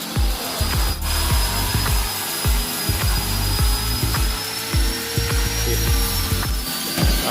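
Background music with a steady, rhythmic bass beat.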